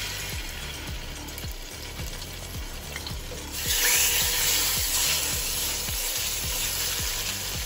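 Salmon pieces sizzling in hot coconut oil in a stainless steel pan. The sizzle gets louder about three and a half seconds in, as another piece is laid into the oil.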